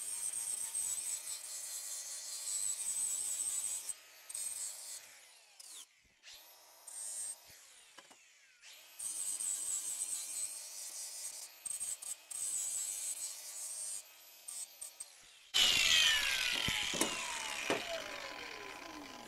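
Cordless angle grinder with a Tiger Paw flap disc grinding the sharp, burred cut edges of a steel piece round, running with a high whine in several passes with pauses between. Near the end, after its loudest moment, it is switched off and its whine falls as the disc winds down.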